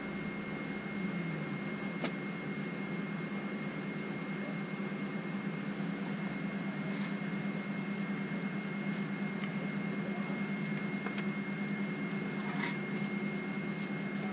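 Steady hum of the air conditioning inside the cabin of a McDonnell Douglas MD-83 airliner, with a constant high whine over it. A faint click comes near the end.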